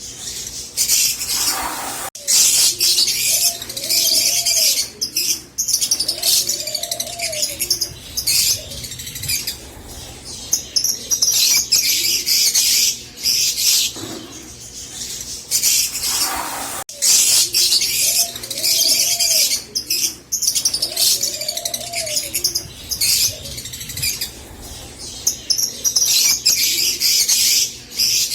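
Fischer's lovebirds chirping and singing in rapid, high-pitched chattering runs a second or two long, broken by short pauses.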